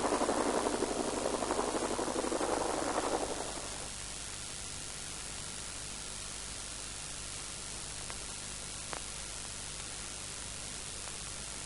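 Steady hiss of an old film soundtrack. For the first three and a half seconds a louder, dense noise runs over it, then fades out and leaves only the hiss.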